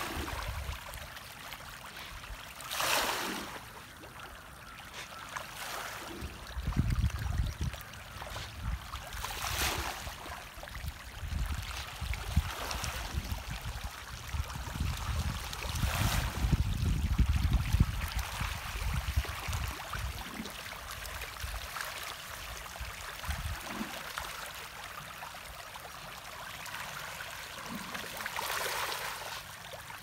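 Pangasius catfish splashing and churning the pond surface as they feed: a steady watery rushing with louder splashy surges every several seconds, and bouts of low rumble.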